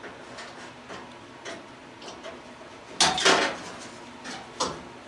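Light clicks and taps of hand tools and metal parts being handled on a gas stove, with a sharper double clatter about three seconds in and another snap near the end.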